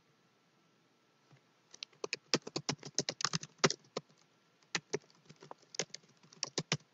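Typing on a computer keyboard: a run of irregular key clicks starting about two seconds in.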